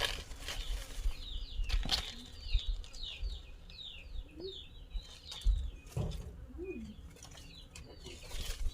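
A small bird in the background gives a run of about ten quick, falling chirps. Scattered knocks and low thuds come from a wood cooking fire being worked until it catches.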